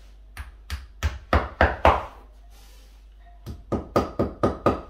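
Claw hammer tapping brown plastic wall plugs into drilled holes in a masonry wall. About six sharp strikes, a pause, then a quicker run of about seven strikes.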